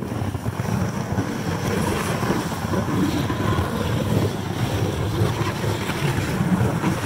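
Wind buffeting the microphone: a loud, steady, low rushing noise that starts suddenly.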